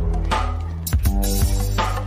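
Background music with a deep bass line under a steady drum beat.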